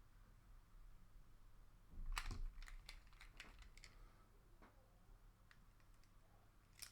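Scattered light clicks and taps of small plastic toy-car parts being handled and fitted, with a brief cluster of louder ones about two seconds in.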